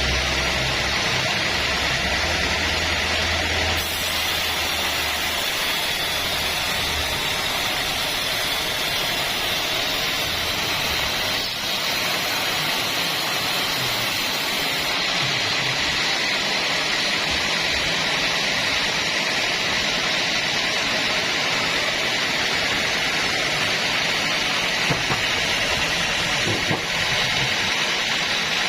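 Homemade band sawmill running with a steady, loud, hissing mechanical noise, as when cutting acacia wood.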